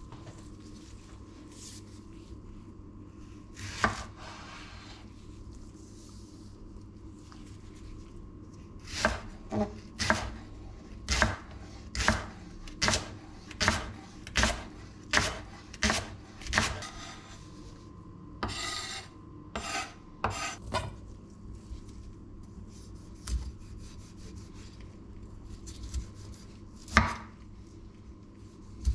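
Chef's knife cutting on a bamboo cutting board: a steady run of sharp knocks, about one every 0.7 seconds, as a leek is sliced into rounds, then a brief rustle and a few scattered chops as broccoli is cut.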